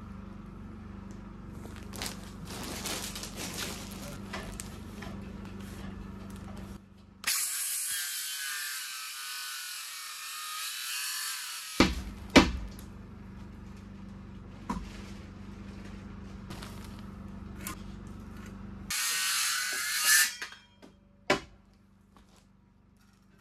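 Carpentry work on wooden pallet framing: several sharp knocks of wood, the loudest two close together about halfway through, with two stretches of a steady high hiss, one of about four seconds and a shorter one near the end.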